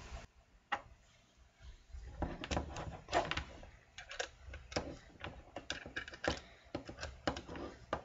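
Faint irregular clicks and small knocks of a BNC connector and 50-ohm terminator being fitted to the oscilloscope's coaxial input: one click about a second in, then a busy run of clicks for several seconds.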